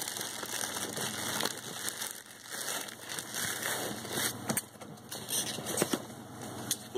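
Packing material rustling and crinkling as a shipping box of beers is rummaged through, with a few sharp clicks near the end.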